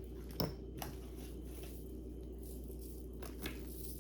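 Faint handling noises of jewelry being picked over: a few soft clicks and rustles, the sharpest about half a second in, over a steady low hum.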